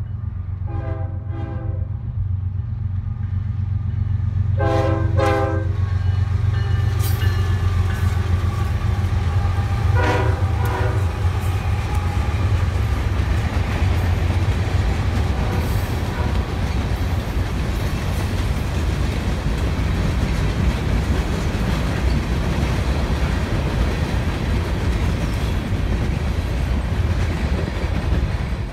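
Union Pacific freight train with diesel locomotives approaching and passing close by: the locomotive horn sounds three times, about a second in, about five seconds in and about ten seconds in, over a rising engine rumble. After that a long string of covered hopper cars rolls past with steady wheel-on-rail rumble and clatter.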